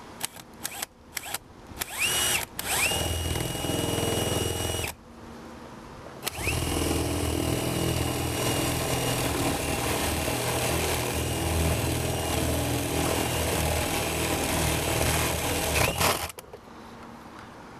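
Cordless drill with a 7/8-inch bit boring through a plastic siding mounting block into the house wall. A few short trigger blips, then a steady whine for about two seconds, a pause, then a run of about ten seconds with a deeper rumble under the whine as the bit cuts, stopping near the end.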